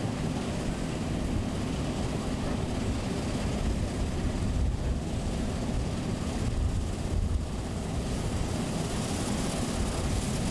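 Combine harvester running steadily in a wheat field, a continuous mechanical noise from its engine and threshing gear.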